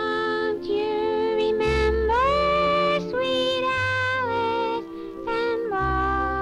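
A cartoon girl mouse sings in a high female voice: long held notes with a slight waver and a swooping rise about two seconds in. A musical accompaniment plays underneath.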